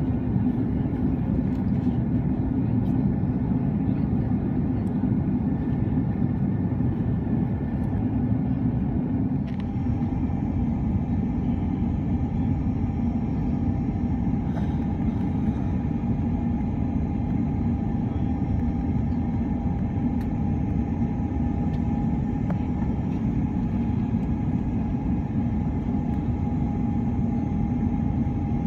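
Steady, loud rumble of an Airbus A330-300's Rolls-Royce Trent 772B engines heard inside the passenger cabin. About a third of the way in, a steady mid-pitched whine joins and holds.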